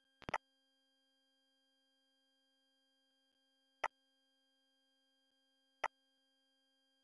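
Three short, sharp computer mouse clicks over near silence with a faint steady electrical hum: a quick double click about a third of a second in, then single clicks just before 4 s and just before 6 s.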